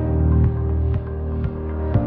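Background music laid over the video: sustained notes with a steady beat, changing chord near the start and again near the end.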